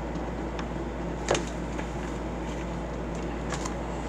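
Steady room hum with a few light clicks and taps from a marker and a pencil being handled on a table. The sharpest knock comes a little over a second in.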